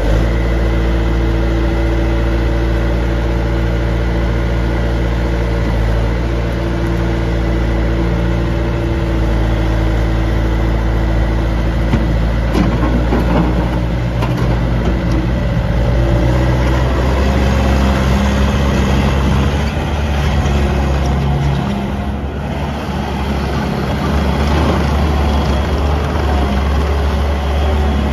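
Bobcat T300 skid steer's 81 HP Kubota diesel engine running, idling steadily for about the first twelve seconds, then changing speed several times.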